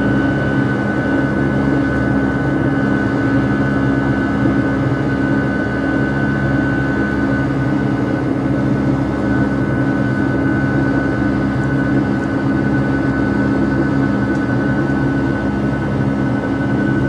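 Steady in-flight drone of a passenger jet heard inside the cabin: constant engine and air noise with a low hum and a thin high tone, unchanging throughout.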